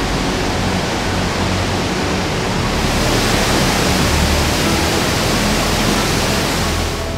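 Epupa Falls on the Kunene River: a waterfall's water rushing through a rocky gorge, a steady loud noise that grows brighter about three seconds in.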